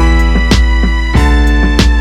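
Background music: a beat with heavy bass and drum hits comes in right at the start, over held keyboard chords.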